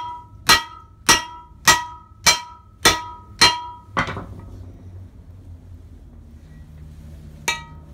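Hammer striking the steel yoke of a Jeep Cherokee axle shaft to drive out the U-joint cap: about eight sharp, ringing metal-on-metal blows, a little under two a second, stopping about four seconds in. One lighter clink follows near the end.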